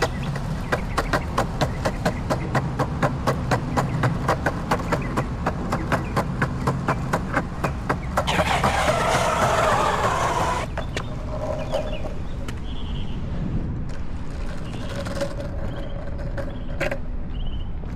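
Longboard wheels rolling on a concrete sidewalk, clacking over the expansion joints about three or four times a second with a low rolling rumble. About eight seconds in comes a loud scraping rush of about two and a half seconds, and after it the clacking stops.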